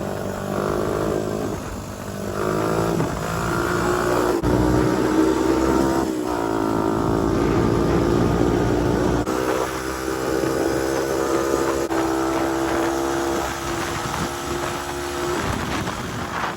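Honda TRX250X four-wheeler's single-cylinder engine running under load while riding, its revs rising and falling with the throttle, holding steady for a few seconds in places.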